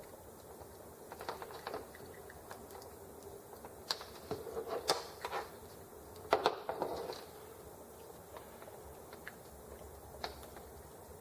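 Small parts being handled by hand: light clicks and rattles of plastic and metal pieces as ignition module parts and wires are worked loose from a model engine. They come in a few short clusters, loudest around the middle, with a single click near the end.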